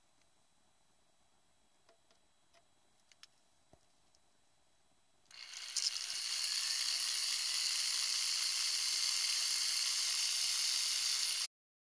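Drill with a diamond core bit running and grinding into aquarium glass to cut a drain hole: a steady high-pitched whine and grinding that starts about five seconds in and cuts off abruptly near the end. Before it, a few faint clicks of handling.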